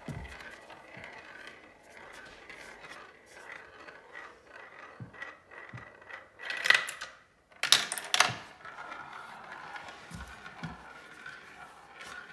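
A marble rolling through a clear plastic marble-run track and circling a plastic funnel bowl, a steady rolling rattle with many small clicks. A little past halfway there are two louder clattering bursts about a second apart.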